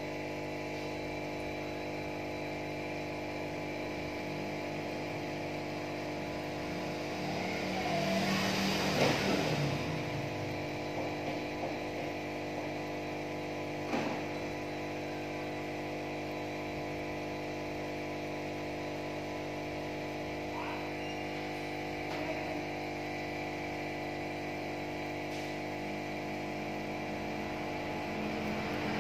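Steady electric hum of an aquarium air pump driving the tank's bottle filter. A brief louder swell of noise comes about eight seconds in, and a sharp tap around fourteen seconds.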